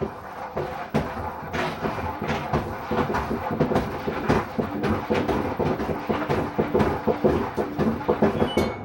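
LG front-load washing machine drum spinning with loud, rapid, irregular knocking and rattling under a faint motor hum, stopping suddenly near the end: typical of worn drum bearings and oil seal, and possibly a broken spider arm.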